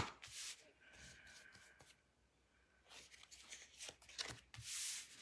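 Oracle cards being drawn from a hand-held deck and laid down: faint rustles and soft card taps, a sharper one at the start and a few more in the second half.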